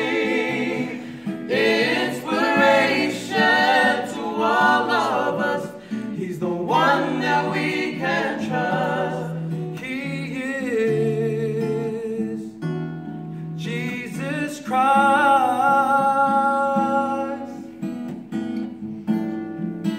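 A trio singing a gospel song to strummed acoustic guitar, with long held notes about halfway through and again a few seconds later.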